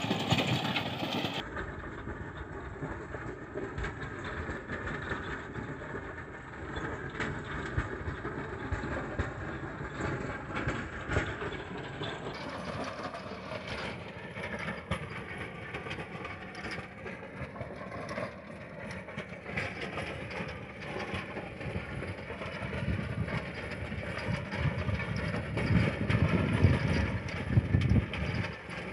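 Sonalika tractor's diesel engine running under load while its rear-mounted Lancer rotavator churns dry, cloddy soil. The noise is continuous and gets louder in the last few seconds.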